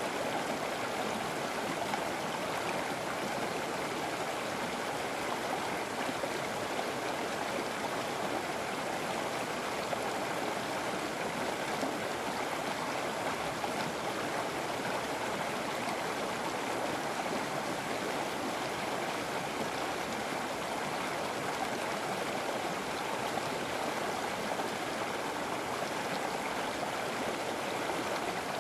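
River water flowing steadily over rocks, a continuous even rush with no breaks or changes.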